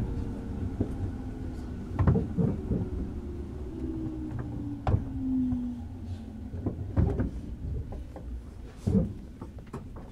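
Inside a JR Kyushu 103 Series 1500 motor car: the traction motors' whine falls slowly in pitch as the train slows, with four heavy clunks from the wheels over the track.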